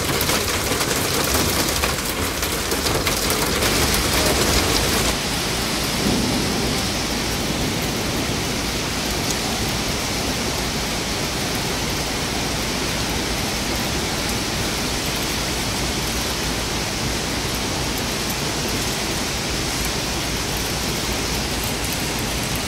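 Hail and heavy rain beating on a coach's windscreen, a dense, loud rattle. About five seconds in it changes abruptly to a steady, even downpour.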